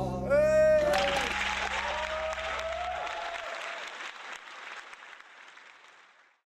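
Applause and cheering from a small group as a song ends, with a single voice whooping just after the start over the band's held final low notes, which stop about three seconds in. The applause fades away and is gone shortly before the end.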